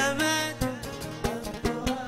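Traditional Yemeni song: a man's sung phrase with oud accompaniment ends about half a second in, then the oud carries on alone with plucked notes over steady drum beats.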